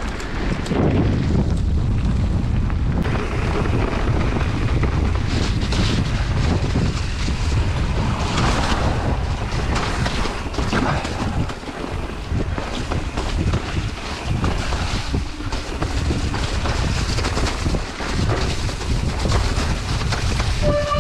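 Wind buffeting the camera microphone while riding a mountain bike down a trail, with tyre roar and scattered knocks and rattles from the bike over rough ground.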